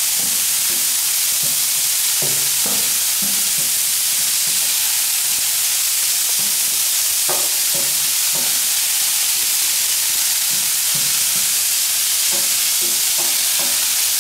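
Diced carrots, sweet potatoes and broccoli sizzling steadily on a hot steel flat-top griddle. Tongs clack and scrape on the cooking surface now and then as the vegetables are turned.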